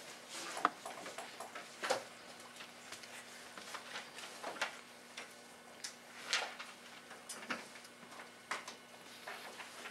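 Quiet classroom room tone: scattered, irregular light taps, knocks and scratches of pencils and hands at students' desks during writing, over a faint steady hum.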